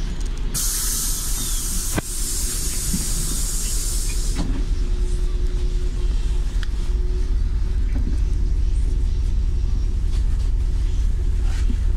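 City bus engine running steadily, heard from inside the cabin, with a loud hiss of compressed air from the bus's pneumatic system for about four seconds, starting about half a second in. A sharp click sounds about two seconds in.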